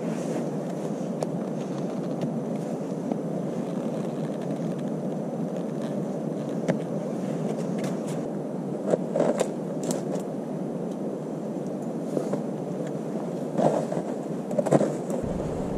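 A steady low rushing noise throughout, over which a wooden peg is knocked into a hole in a tree trunk with a few sharp taps. Near the end, a metal kettle clanks twice as it is hung on the peg.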